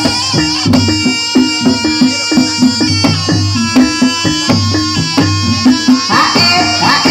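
Jaranan gamelan music: drums and tuned metal percussion playing a steady repeating rhythm.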